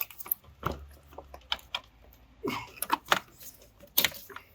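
Irregular clicks and knocks of hand tools on metal parts, a few louder strikes among them.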